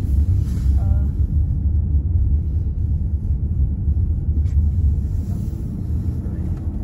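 Steady low rumble of a moving car, with engine and tyre noise heard from inside the cabin.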